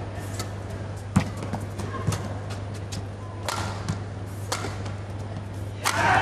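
Badminton rally: sharp racket strikes on the shuttlecock every second or so, with brief shoe squeaks on the court. Crowd noise swells near the end.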